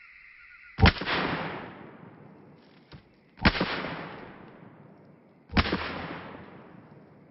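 Three shots from a Ruger Standard .22 pistol firing .22 Long Rifle Stinger rounds, about two and a half and then two seconds apart, each followed by a long echo.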